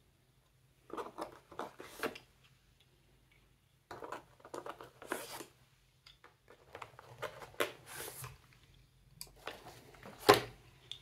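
Wooden colour pencils being pulled from the elastic loops of a fabric pencil case and clicking together in a hand. The clicking and rustling comes in four short bouts, with the loudest knock near the end.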